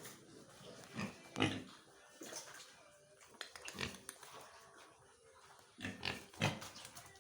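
Pigs grunting: a series of short, separate grunts, the loudest about a second and a half in and again near the end.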